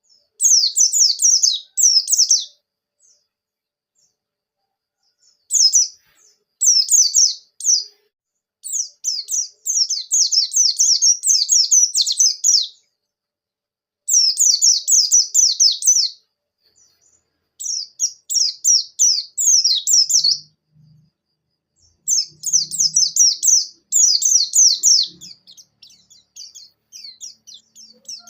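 White-eye (pleci) singing in full voice: rapid, high-pitched twittering trills delivered in bursts of one to two seconds, separated by short pauses.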